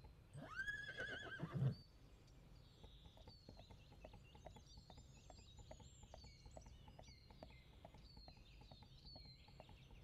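A horse whinnies once with a wavering pitch, then hooves clip-clop faintly in a long run of quick, light beats as the horse runs.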